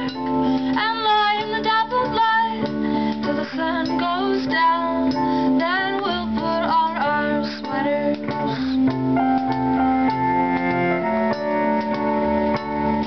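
Live band music: a woman sings lead over keyboard and bowed cello. Her voice moves through the first half, and steadier held notes take over in the second.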